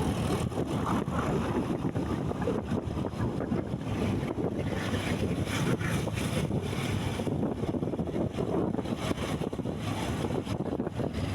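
Wind buffeting the microphone over a steady low rumble; no horn tune is heard.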